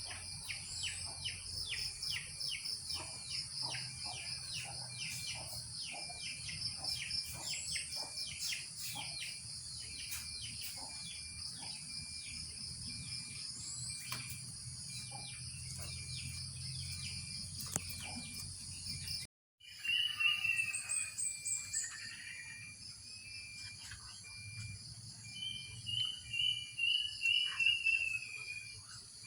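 Steady high insect drone with bird chirps over it and a run of rapid clicks through the first two-thirds. After a brief break, a quick falling run of chirps, then near the end a series of about six chirps that step down in pitch.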